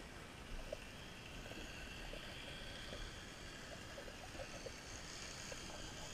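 Faint, steady underwater ambience heard with the microphone submerged: a soft hiss of moving water with scattered small ticks.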